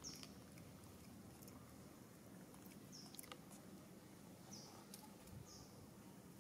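Faint, short, high-pitched chirps from a small animal, about five of them a second or more apart, over near silence.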